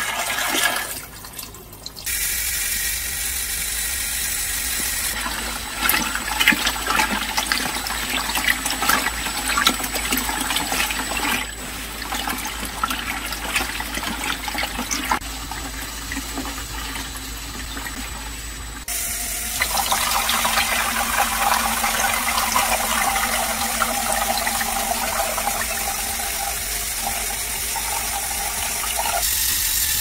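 Water running and splashing in a Lego Technic washing machine during its rinse, first filling the clear drum and then pouring out into the collecting tray. The sound changes abruptly several times.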